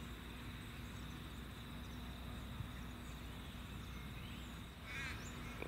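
Faint, steady outdoor background ambience with a light constant hum. A bird calls with a short series of chirps near the end.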